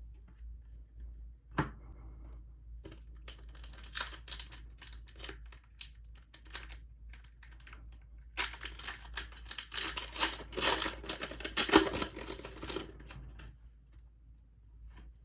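Packaging being crinkled and torn by hand: a sharp click about a second and a half in, scattered crackles, then a dense run of crinkling and tearing that stops about two seconds before the end.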